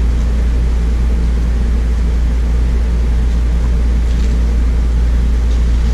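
Steady low machine hum, with a faint paper rustle of a picture-book page being turned about four seconds in.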